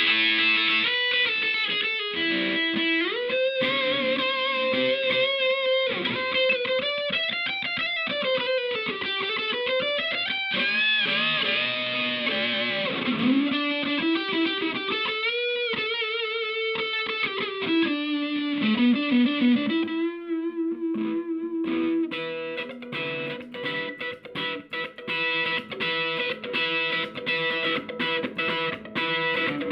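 Electric guitar played through a KATANASOUND handmade effect pedal with a distorted tone: long held notes bent and slid up and down, changing about 22 seconds in to a choppy riff of short repeated notes.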